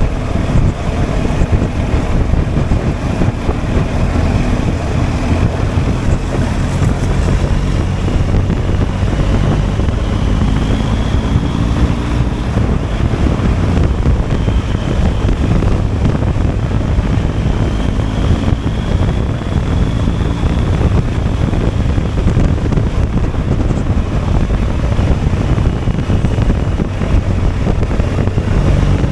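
BMW R1250 GSA motorcycle's boxer-twin engine running on the move, its note rising and falling repeatedly, with heavy wind noise on the microphone.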